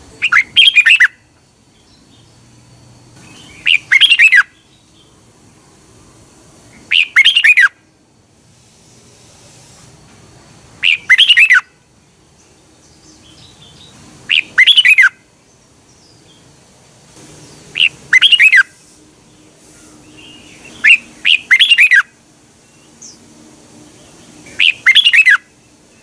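Red-whiskered bulbul singing: a short phrase of quick notes, each under a second, repeated about every three to four seconds, eight phrases in all.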